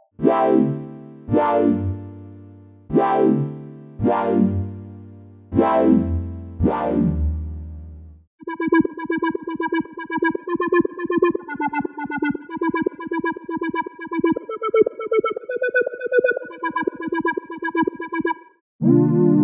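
Omnisphere software synthesizer played from a keyboard. First come about six chords with sharp attacks, each dying away. Then, from about eight seconds in, the 'Breaktime' patch plays a fast rhythmic pattern of short plucky notes.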